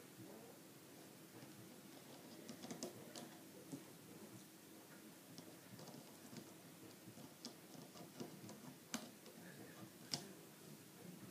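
Faint, irregular small clicks and taps of rubber loom bands being stretched and placed onto the pegs of a plastic rubber-band loom, with two sharper clicks near the end.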